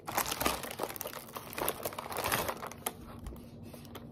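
Plastic wrapper of an Oreo cookie package crinkling as it is handled, loudest over the first two and a half seconds and then quieter.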